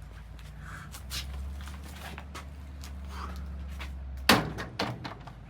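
Microwave oven running with a low hum, then a sharp clack about four seconds in, like its door being opened, after which the hum stops, with a couple of smaller knocks.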